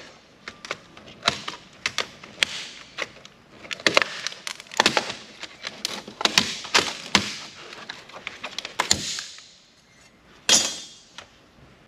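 Parts being handled while a laptop is taken apart: a busy run of sharp clicks and knocks of plastic and metal pieces, with a louder clatter near the end.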